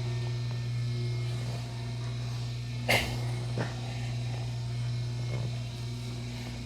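Steady low electrical hum, with one sharp crack about three seconds in and a softer click about half a second later.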